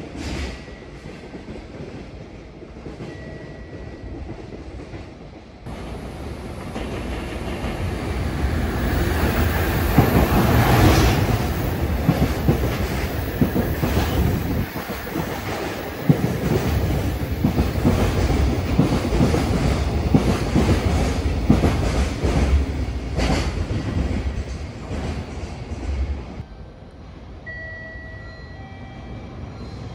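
JR Freight EF210 electric locomotive hauling container flatcars through a station. The rumble builds from about five seconds in and is loudest around ten seconds, with wheel clickety-clack over rail joints, then drops away sharply near the end.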